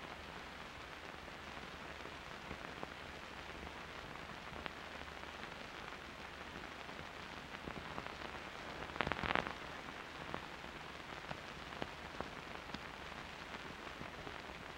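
Steady hiss and faint crackle of an old film's optical soundtrack between stretches of narration, with a short burst of louder crackle about nine seconds in.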